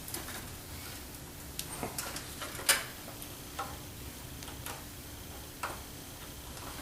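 Scattered light clicks and taps of a 6-pin PCIe power cable and its plastic plug being handled and fitted onto a graphics card's power socket, the sharpest click a little under three seconds in.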